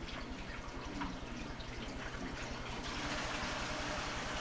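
Water running and splashing during a cat's bath, growing louder about three seconds in, over a steady low hum.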